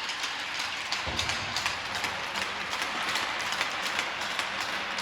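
Ice-hockey rink noise: many sharp clicks of skates and sticks on the ice over a steady hiss, with a low thump about a second in.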